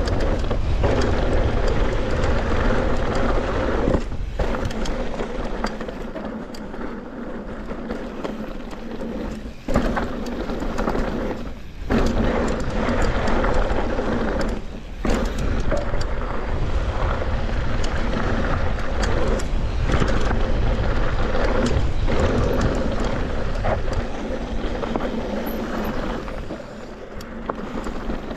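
Wind buffeting the microphone over the rumble and rattle of a Norco Sight full-suspension mountain bike's tyres and frame on a fast, rough dirt singletrack descent, with scattered clicks and a few brief lulls.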